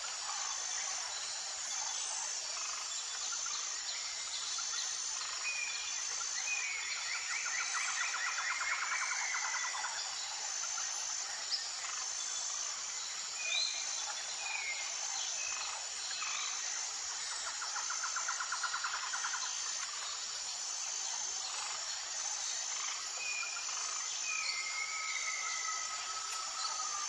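Steady drone of insects with a faint high note pulsing about once a second, and birds calling over it every few seconds in short trills and falling whistles.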